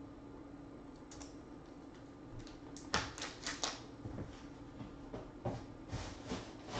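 Hard plastic card holders clicking and clacking as they are handled and set on a stack on the table: a run of short sharp clicks, busiest a few seconds in and again near the end, over a faint steady hum.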